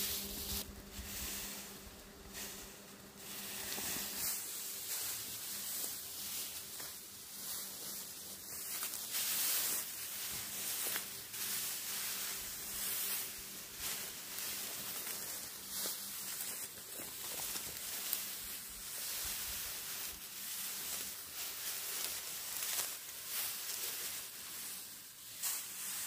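Bundles of dry, cut rice straw rustling and crackling irregularly as they are grabbed and gathered, with steps through the stubble.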